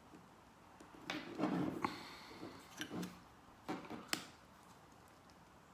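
Plastic pry tool working at the seam of an iPod Classic's metal back case: a scatter of short scrapes and sharp clicks, the sharpest about four seconds in.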